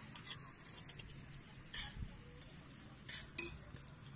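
Cutlery and dishes clinking lightly as food is served at a table: a few short, sharp clinks, one about two seconds in and two more a little after three seconds.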